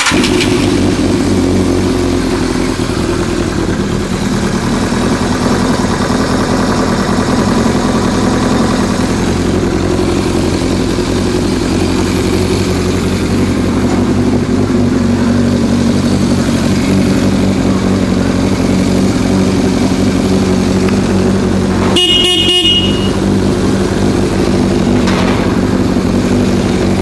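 Yamaha YZF600R Thundercat's inline-four engine idling steadily. About twenty-two seconds in, a brief high beep with crackling cuts through.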